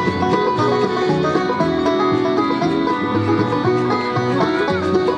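Bluegrass music with a plucked banjo, played without pause.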